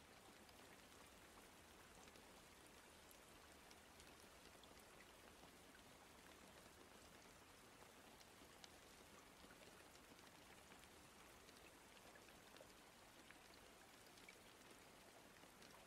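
Faint steady rain, with scattered light drop ticks.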